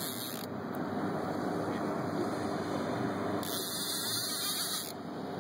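Steady noise of wind on the microphone and lake water around a boat, with a faint low hum.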